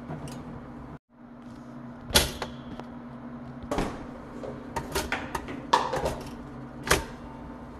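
Sharp metal clicks and clunks from a stainless steel Oster two-slot toaster as bagels are dropped into the slots and the lever is worked, over a steady low hum. The loudest click comes about two seconds in, with a quick cluster of smaller clicks near the end.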